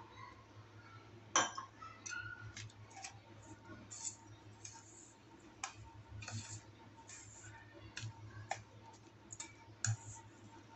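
Metal spoon tapping and scraping against a stainless steel bowl while stirring milk into crumbly biscuit powder: scattered light clicks at an uneven pace, the sharpest about a second and a half in.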